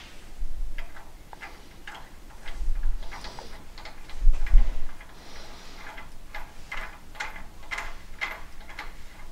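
Stainless check valve being screwed by hand into the head of an mRoy diaphragm metering pump: light metal clicks with a few dull knocks from handling, the loudest about four seconds in. In the second half the clicks come at about two or three a second as the valve is turned on its threads.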